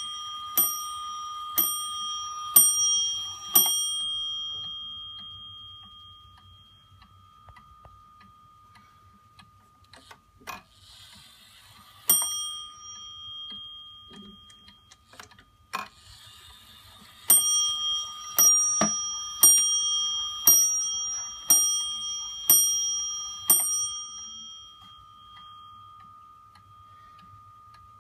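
Bell of a Warmink Friese tailed wall clock striking: four blows about a second apart near the start, a single blow about twelve seconds in, then seven more blows about a second apart from about seventeen seconds, each left ringing. Faint ticking of the movement and a couple of handling knocks come in between.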